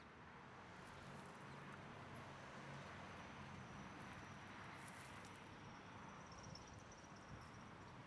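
Faint outdoor ambience: a steady low hiss, with a thin, high, steady trill from a distant insect for a few seconds in the middle.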